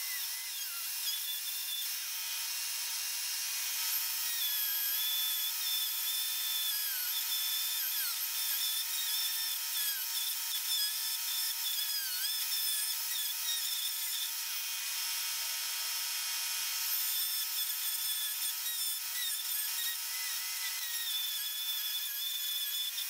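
Handheld rotary tool with a diamond cutoff wheel cutting into a wooden frame: a steady high-pitched whine that dips briefly in pitch now and then as the wheel bites into the wood.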